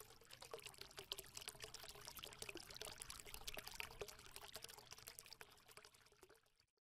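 Faint intro sound effect of fine crackling and trickling. It swells over the first few seconds and fades out near the end.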